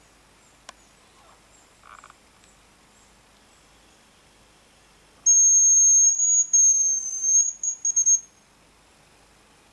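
Hazel grouse decoy whistle blown close up, starting about five seconds in: two long, thin, very high whistles followed by a quick run of short broken notes, imitating the hazel grouse's song.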